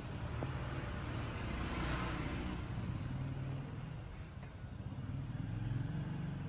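Motor vehicle engine rumble, swelling and fading as a vehicle passes, then a second swell near the end as another one goes by.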